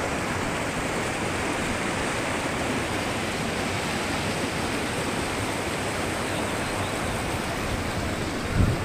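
Mountain stream rushing and cascading over boulders, a steady roar of white water, with a brief low bump near the end.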